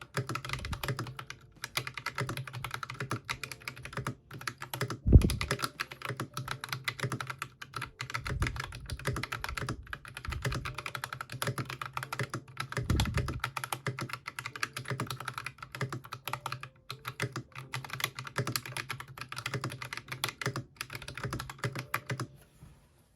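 Mechanical keyboard fitted with Akko Ocean Blue switches being typed on quickly and continuously: a dense clatter of key clicks, with a few heavier low thumps among them. The typing stops just before the end.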